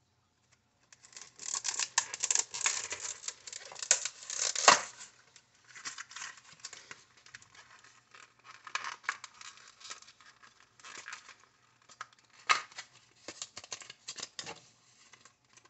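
Clear rigid plastic clamshell blister pack being pried open and handled: a dense run of crackles and crinkles starting about a second in and loudest about four to five seconds in, then scattered crackles.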